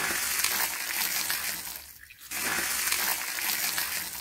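Cold water poured from a pot over a person's head and body, splashing down onto the snowy ground. It comes as two pours of about two seconds each, with a short break between them.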